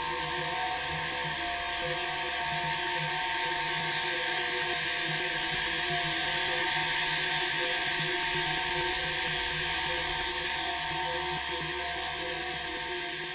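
Electronic sound-art drone made entirely from a processed recording of Jamaican crickets: a dense, steady high hiss over a stack of sustained tones, the lower ones flickering slightly. It eases off a little near the end.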